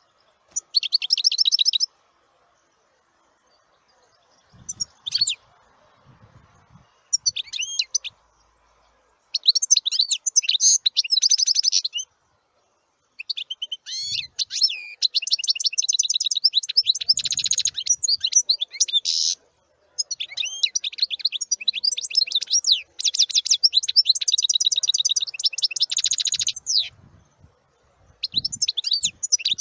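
A small songbird singing in bouts of fast, high, trilling and chattering phrases. Some bouts are brief, and the longest run on for several seconds, with short pauses between them.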